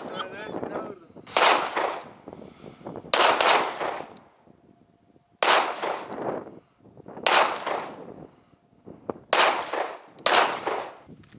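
Six pistol shots fired one at a time at a long-range target, roughly two seconds apart, each a sharp crack with a short echoing tail.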